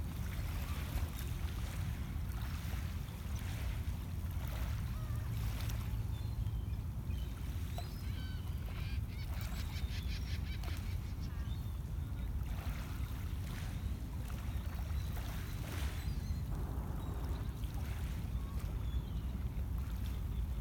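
Small waves lapping on a pebble lakeshore over a steady low rumble, with scattered short bird calls and a quick rattling call about halfway through.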